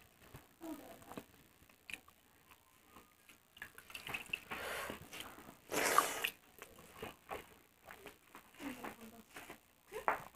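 Wet, squishing mouth sounds of watered rice (pakhala) being eaten by hand: small smacking clicks throughout, and a loud slurp as a handful goes into the mouth about six seconds in.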